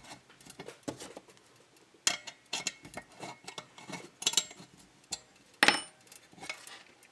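Scattered light metallic clicks and clinks as metal hardware is handled and tightened by hand, a few sharp knocks spaced irregularly, the loudest nearly six seconds in.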